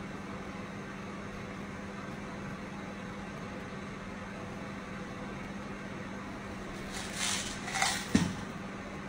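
Steady machine hum with a low tone, like room ventilation running. Near the end come a couple of brief rustling noises and a short knock, the loudest sounds here.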